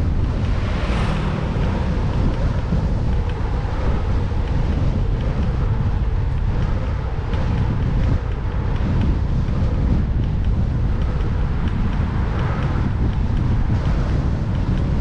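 Strong wind buffeting a camera microphone on a moving bicycle: a dense, steady low rumble, with a brighter swell about a second in.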